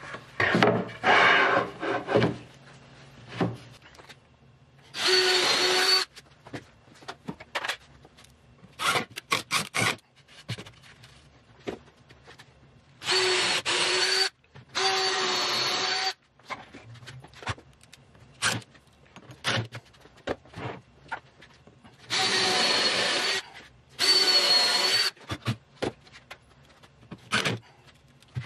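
A power tool's motor running in short, steady-pitched bursts of about a second each, five times, with clicks and knocks of handling in between.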